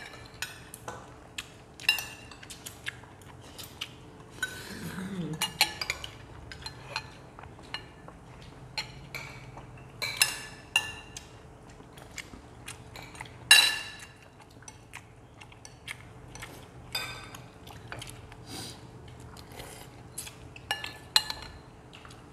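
Metal spoons and chopsticks clinking and scraping against ceramic bowls and plates during a meal, in irregular scattered taps, the loudest about two-thirds of the way through. A brief low vocal murmur about five seconds in.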